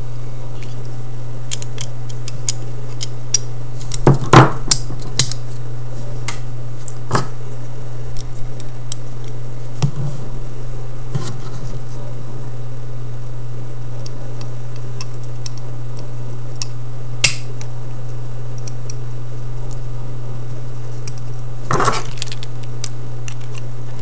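Scattered metal clicks and taps of an OTF knife's parts being handled and fitted back together: handle scale, carriage and trigger. They come a few seconds apart, the loudest about four seconds in, over a steady low hum.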